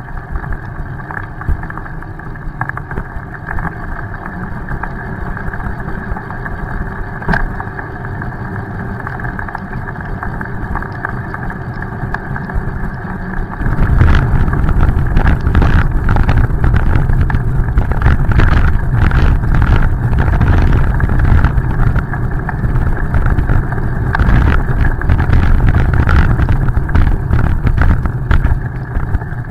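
Wind and road rumble on a bicycle-mounted camera riding over wet pavement, played back at double speed; it gets louder and rougher about halfway through.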